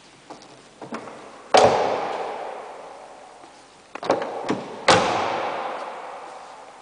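Two car doors slammed shut in turn, each a sharp bang followed by a long echo. A few small clicks come just before each slam.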